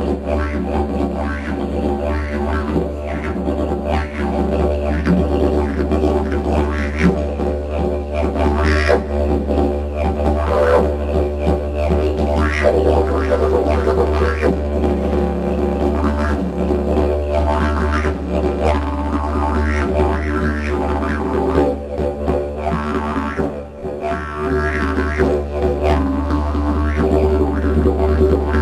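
Didgeridoo played into a microphone: a continuous low drone with overtones that shift and pulse in rhythmic accents over it.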